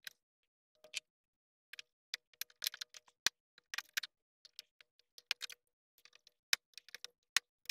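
Flathead screwdriver prying plastic push-in retaining clips out of a front bumper: a run of irregular sharp clicks and taps, several to a second.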